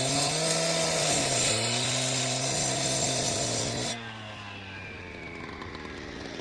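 Gas-powered concrete cut-off saw running at high revs and cutting, its engine pitch wavering under load. About four seconds in the cutting hiss stops and the engine drops back, running more quietly.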